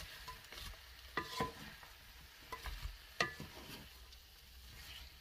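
Spatula stirring and turning sliced döner kebab meat and vegetables in a hot non-stick frying pan, the food sizzling faintly, with a few sharp taps and scrapes against the pan, the sharpest about three seconds in.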